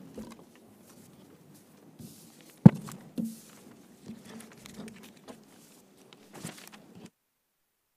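Room noise of a meeting hall as a meeting breaks up: scattered knocks, shuffles and footsteps, with one sharp thump about two and a half seconds in. The sound cuts off to silence about seven seconds in.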